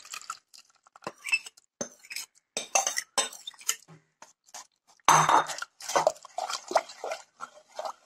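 Metal spoon scraping and clinking against a bowl and a pot as a thick batter of ground rice and leaf paste is scraped out and stirred, in irregular strokes; the loudest scrape comes about five seconds in.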